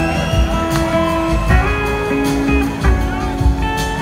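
A live band playing, heard from the audience: electric guitar over held keyboard chords, with drum and cymbal hits.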